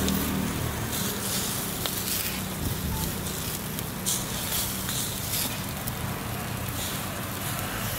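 Meatballs grilling over a fire: steady crackling and sizzling, with a few sharper pops, over a continuous low hum.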